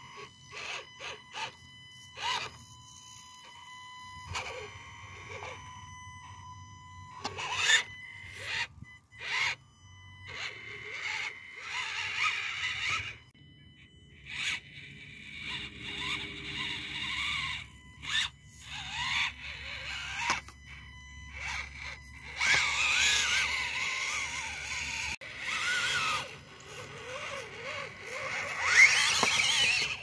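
Axial SCX24 Deadbolt 1/24-scale RC rock crawler's small electric motor and gears whining in stop-start bursts as it climbs, the pitch wavering under load. Its tyres and chassis scrape and click on rock. The whine is loudest in the last third.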